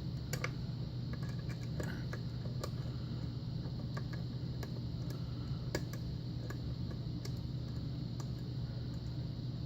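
Lock pick clicking and tapping irregularly on the pins of an old six-pin Russwin pin tumbler lock held under tension during single-pin picking, over a steady low hum.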